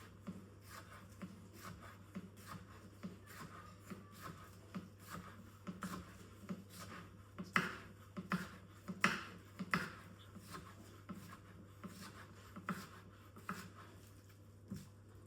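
Knife chopping on a cutting board: a steady run of short knocks, about two to three a second, with a few louder strokes near the middle.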